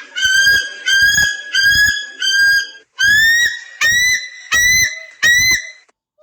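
An animal-sound ringtone playing a high, clear call repeated eight times, each about half a second long. The first four hold a steady pitch. The last four start with an upward sweep and sit slightly higher.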